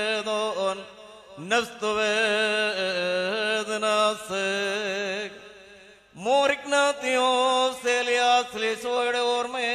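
A single voice chanting a Syriac Orthodox liturgical hymn with long, wavering held notes. It pauses briefly about a second in and again around five to six seconds in, each time sliding up into the next phrase.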